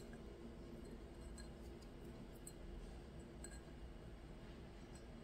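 Near silence: low room hum with a few faint ticks about a second apart as a glass champagne flute is handled and wiped with a paper towel.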